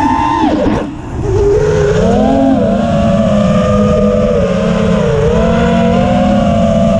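Brushless motors and propellers of a 5-inch FPV quadcopter (iFlight Xing 2306.5 2550KV on 4S) whining in flight. About half a second in the throttle is chopped, so the pitch falls and the sound dips briefly. The whine then climbs back with throttle and holds with small rises and falls in pitch.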